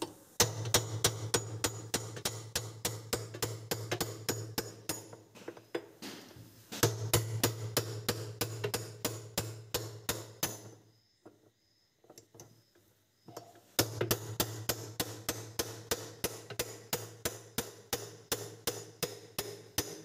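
Hammer blows on a spanner fitted to the hub nut at the centre of a top-loading washing machine's drum, about three or four blows a second in three runs with two short pauses. The blows are meant to shock loose a nut that may be rusted fast.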